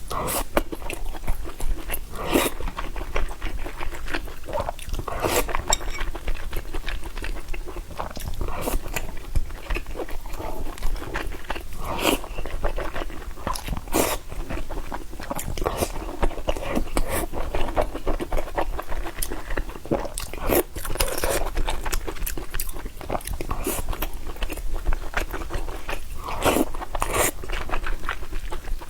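A person chewing and biting food, with many irregularly spaced sharp clicks and smacks of the mouth.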